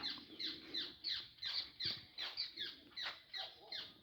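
A group of guira cuckoos (white anis) calling together: a steady chorus of downward-sliding whistled notes, about three a second.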